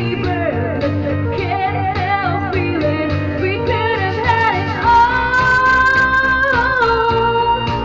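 Karaoke singing: a voice singing a melody over a backing track with guitar, holding one long note about five seconds in.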